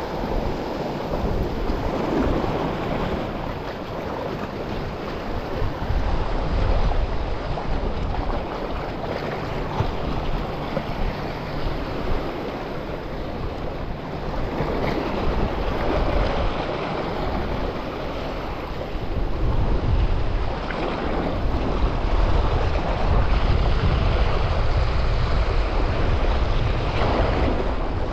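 Sea waves washing against shoreline rocks, with gusts of wind buffeting the microphone, heaviest in the second half.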